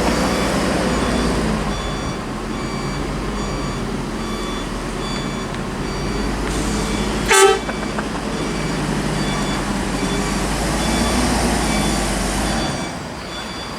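Heavy bus engine running as the bus passes, a steady deep rumble that drops away near the end. A short horn toot sounds about seven seconds in, and a faint high beep repeats throughout.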